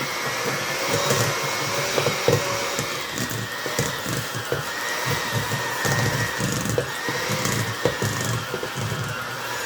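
Electric mixer running steadily, beating butter for frosting: a motor whine that wavers slightly, with irregular knocks and clatter from the beaters.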